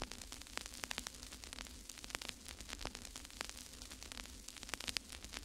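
Faint crackling static: irregular clicks and pops over a hiss and a steady low hum.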